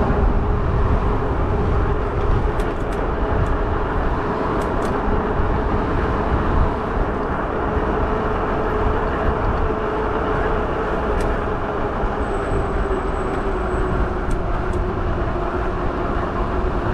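Riding an e-bike: steady wind and road noise rushing over the microphone, with a steady hum held throughout.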